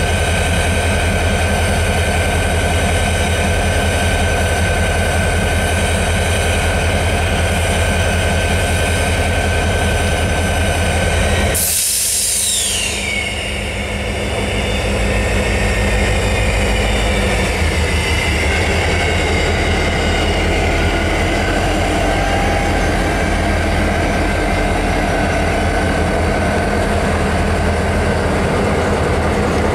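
Diesel freight locomotives passing slowly over a wooden trestle, their engines running with a steady low drone. About twelve seconds in there is a short, loud burst of noise, followed by a whine that falls in pitch.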